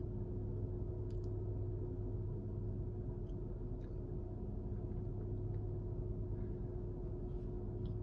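Tesla Model 3's front fan under the bonnet running steadily during the service-menu thermal performance test, a steady hum heard from inside the cabin.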